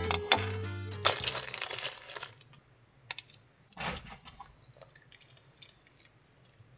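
A plastic treat wrapper crinkling and tearing, then a few sharp clicks and crunches, the loudest about four seconds in, as a small dog chews a treat.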